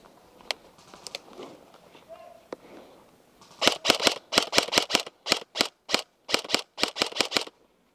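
Airsoft gun firing. From about halfway in, some four seconds of sharp shots come in quick pairs and short bursts, then stop abruptly.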